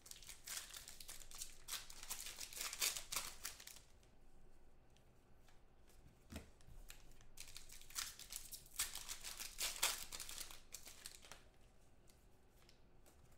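Trading card packs being torn open and their wrappers crinkled, in two spells of crackly rustling, with quieter handling in between.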